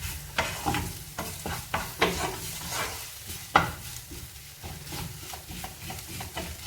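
A spoon stirring a thick spice masala that is frying in oil in a pan: irregular scrapes against the pan over a light, steady sizzle, the loudest scrape about three and a half seconds in.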